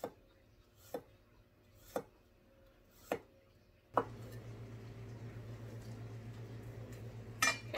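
Chef's knife slicing garlic cloves on a wooden cutting board, a sharp tap about once a second. From about four seconds in, a steady low hum sits under the slicing.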